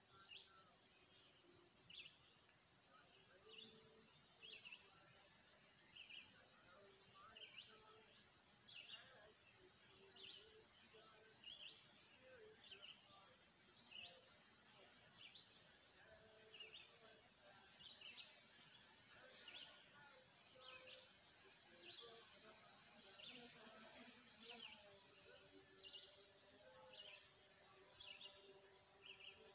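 Faint bird chirping: short high chirps repeating about once a second, with a few fainter lower notes.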